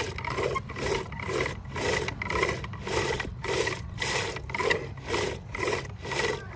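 Rhythmic rasping and rubbing, about two even strokes a second, from hand work.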